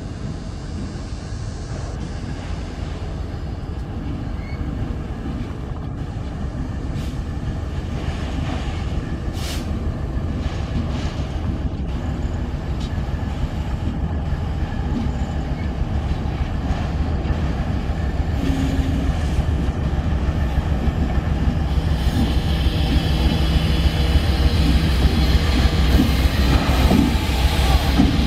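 CSX ST70AH (EMD SD70ACe-T4) diesel-electric locomotive approaching with its train, a steady low engine drone growing louder as it comes closer.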